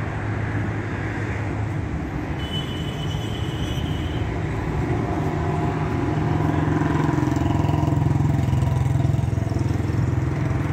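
Royal Enfield Hunter 350's single-cylinder engine idling steadily, with an even low thumping rumble that grows somewhat louder about five seconds in.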